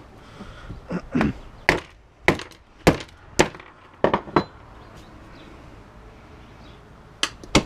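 A string of sharp knocks and clinks from the hard plastic and aluminium parts of an LED flood lamp being broken apart and handled: about eight in the first four seconds or so, a pause, then two more near the end.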